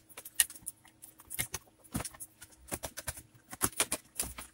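Irregular clicks, taps and light knocks as a Samsung LE32M87BD TV's main circuit board is handled, lifted and turned over on the set's metal chassis.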